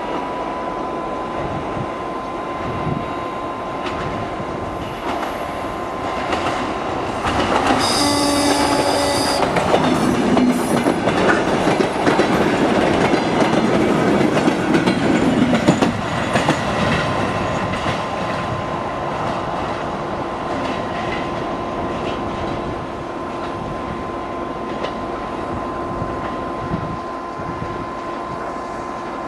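DR1A diesel multiple unit running past on the line, its wheels clicking over the rail joints. It gets louder from about seven seconds in and fades after about sixteen, with a short pitched horn blast about eight seconds in.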